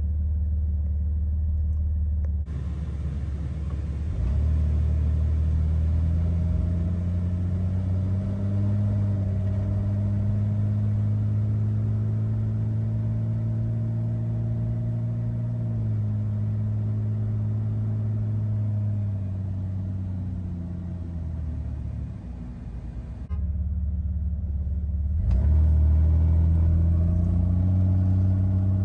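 2005 Jeep Wrangler TJ's 4.0-litre inline-six engine heard from inside the cabin while driving at low speed. The engine note climbs as it accelerates, holds steady, drops away as it slows, and climbs again near the end.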